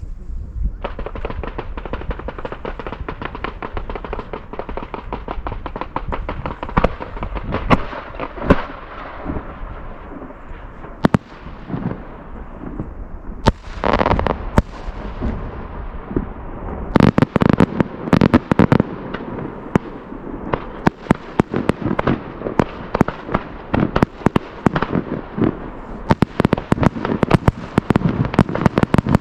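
Aerial fireworks display: a dense run of crackling shell bursts starting about a second in, with heavier booms coming thick and fast through the second half.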